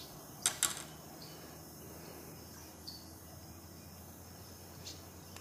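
A freshly landed largemouth bass shaking on the line twice, about half a second in: two short, sharp noises. Insects chirp behind it.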